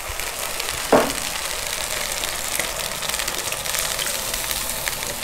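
Fresh milk pouring in a stream into a hot pan of bubbling butter and cream, with a steady sizzle throughout. A short sharp sound stands out about a second in.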